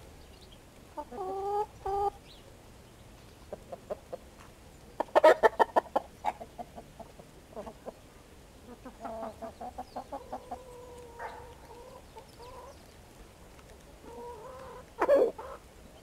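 Domestic chickens clucking. A short call comes about a second in, a quick run of clucks about five seconds in, then a longer drawn-out call, and the loudest call near the end.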